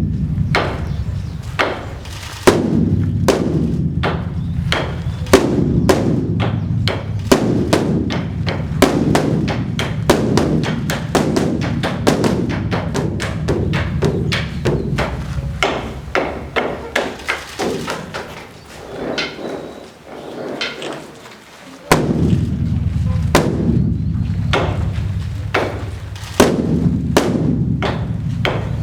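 Large Buddhist temple dharma drum (beopgo) beaten in rapid, irregular rolls of strokes over a heavy low rumble, with sharp crisp strikes on top. The beating thins out and drops away about two-thirds through, then comes back in strongly.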